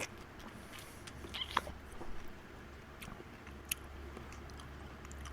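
Close-up eating sounds of instant noodles: soft chewing and slurping with a few short sharp clicks, over a steady low hum.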